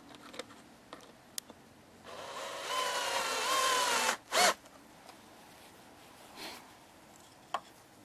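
Cordless drill driving a screw to fasten a wooden block at a hive entrance: about two seconds of motor whine that sags in pitch as the screw bites, then a short, louder burst of the drill just after the middle. A few light clicks and knocks of the tool against wood come before and after.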